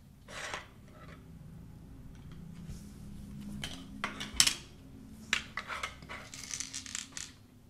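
Montessori golden bead bars clinking as they are lifted from a wooden box, and wooden number tiles knocking and sliding on a wooden Seguin board. Separate sharp clicks, the loudest about four and a half seconds in, with a run of quicker clicks near the end.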